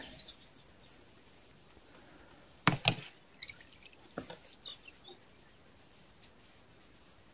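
Fishing line and plastic-bottle float being hauled in by hand over water from a boat: two sharp knocks close together about three seconds in, then a few lighter clicks and drips.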